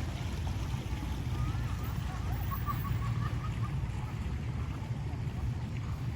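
A steady low rumble, with faint voices far off in the middle.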